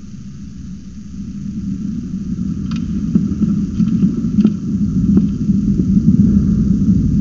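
Thunder rolling, a deep rumble that swells and keeps growing louder from about a second in, with a few sharp crackles through the middle.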